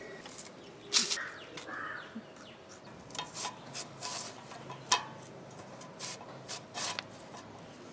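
Raw green plantain being pushed across a plastic mandoline slicer's blade: short scraping strokes at irregular intervals about a second apart, with a sharper click near the middle.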